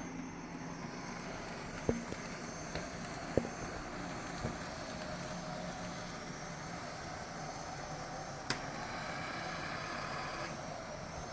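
N scale model train running on the layout with a faint steady whir, broken by several sharp clicks, the loudest about eight and a half seconds in.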